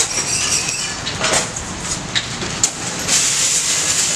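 Steady noise of a busy roadside with motorbike and scooter traffic, broken by a few sharp knocks and clinks; the hiss grows brighter about three seconds in.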